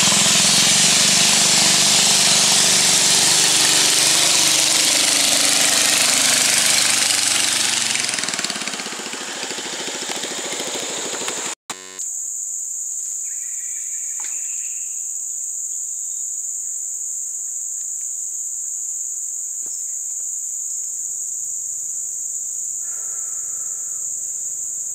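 A small river motorboat's engine running loud as the boat passes, fading away over several seconds. After a short cut, a steady high-pitched insect drone.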